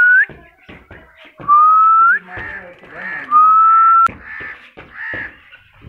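A person whistling in long notes about every two seconds, each held and then flicking sharply upward at the end, the kind of whistle used to send pigeons up into the air. Shorter calls come between the whistles, and there is one sharp click about four seconds in.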